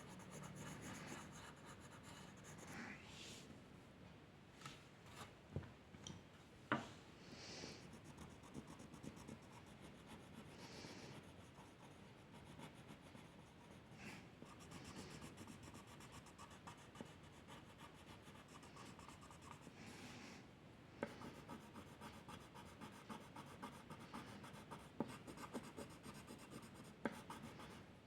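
Faint scratching of a drawing tool stroking across paper, with a few light clicks and taps in between.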